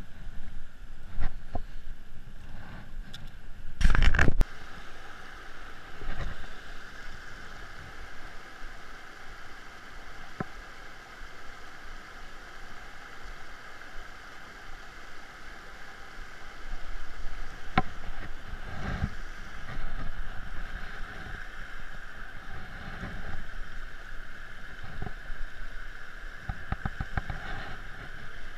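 A shallow, rocky river rushing over stones in a steady, even wash. A loud thump about four seconds in and a few smaller clicks and knocks near the middle and end come from the gear being handled.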